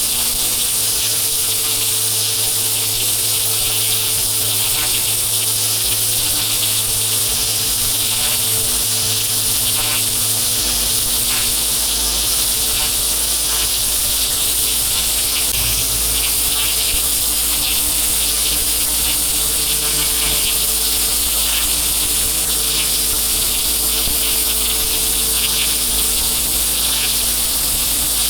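Pressure washer spraying: a loud, steady hiss of the high-pressure water jet, with the machine's low hum underneath that drops to a lower pitch about a third of the way through.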